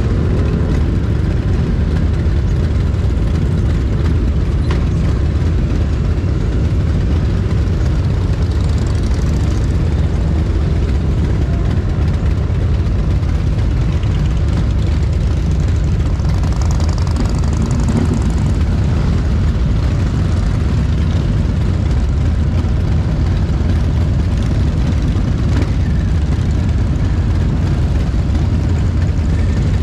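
A procession of motorcycles, mostly cruisers, riding slowly past one after another, their engines running at low revs. The engine sound is loud and steady, with no breaks.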